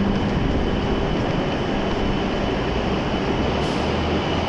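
Steady hum and whir of a W7 series Shinkansen standing at the platform with its doors open, its onboard equipment running.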